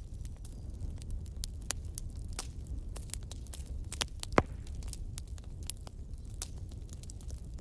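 Wood fire in a fireplace crackling, with many small pops and one louder pop about four seconds in, over a steady low rumble.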